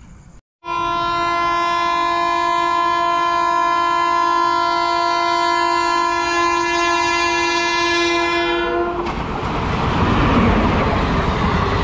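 Indian Railways locomotive horn sounding one long, steady blast for about eight seconds as the train approaches at speed. When the horn stops, the loud rush and rattle of the locomotive and coaches running through the platform take over.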